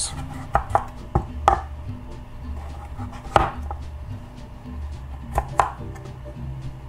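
Chef's knife dicing raw calabaza squash on a wooden cutting board: a series of sharp knocks of the blade through the flesh onto the board, at irregular intervals, the strongest a little over three seconds in.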